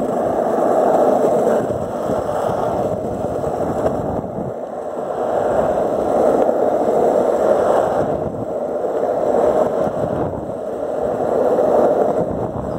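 Wheels rolling fast over rough asphalt, a steady rumbling hiss that swells and eases every few seconds.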